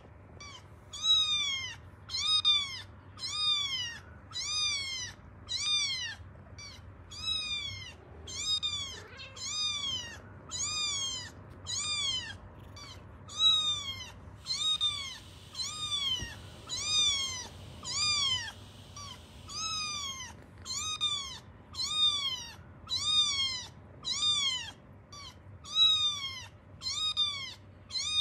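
Recorded kitten crying played from a smartphone: high, plaintive meows repeated about once a second with very even spacing, each rising then falling in pitch.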